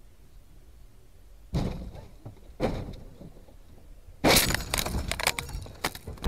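Car crash heard through a dashcam: two heavy thumps about a second apart, then a loud burst of crashing and cracking about four seconds in as the car is hit.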